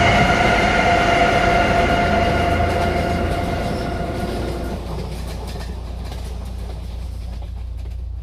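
Train carriage running: a steady low rumble with rail clatter. Over it a high ringing, multi-toned sound fades away over the first five seconds or so.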